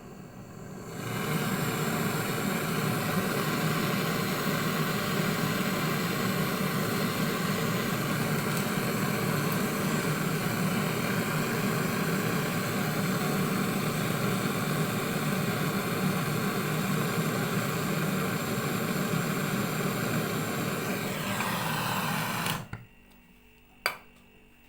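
Brazing torch flame with a steady, loud roar while the refrigerator's refrigerant pipe is sealed. It starts about a second in and cuts off suddenly near the end, followed by a single click.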